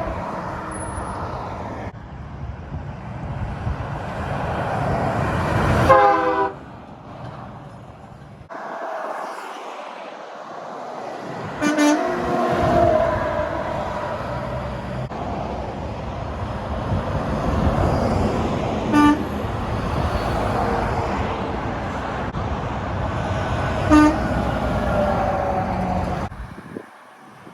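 Big trucks and traffic going past on a road, with short truck horn blasts four times. The sound jumps abruptly several times between separate clips.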